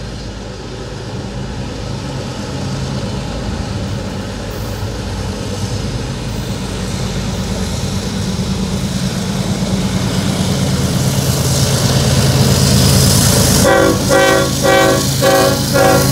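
Norfolk Southern diesel-electric freight locomotives working hard upgrade, a steady low engine drone growing louder as they come out of the tunnel and pass beneath. Near the end the horn sounds a quick run of about five short blasts.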